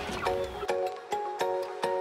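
Background music: a light tune of short, sharp-edged notes in a steady rhythm.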